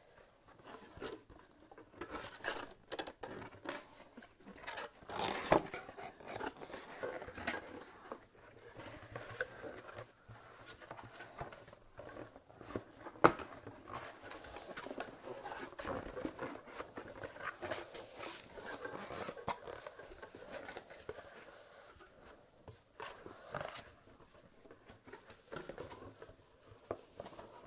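Cardboard shipping box being handled and refolded: irregular rustling and scraping of the cardboard with sharp taps and clicks as the flaps move, the loudest click about thirteen seconds in.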